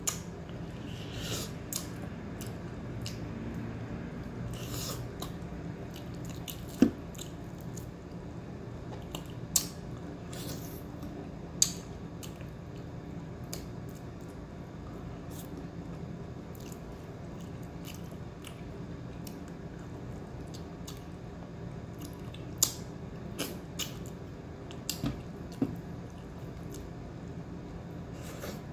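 Someone eating: scattered sharp clicks of utensils against a dish, with chewing, over a steady low hum.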